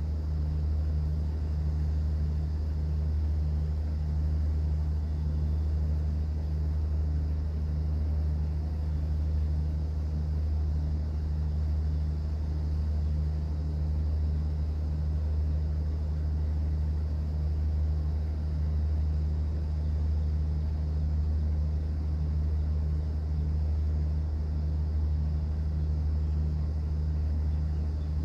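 Cruise boat's engine running with a steady low drone, and a faint even hiss over it.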